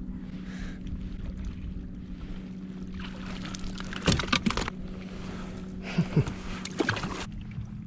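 A smallmouth bass being brought in beside a kayak: two bouts of water splashing and knocks, midway and near the end, over a steady low hum that shifts slightly in pitch near the end.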